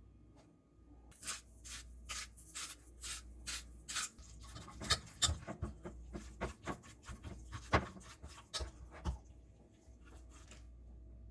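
Hands-on food preparation in a home kitchen: a run of short scraping, rustling strokes, about two or three a second, starting about a second in and stopping shortly before the end.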